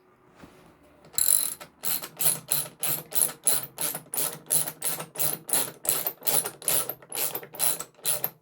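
Ratchet wrench clicking in a quick, even series of strokes, about three a second, as it runs a bolt down.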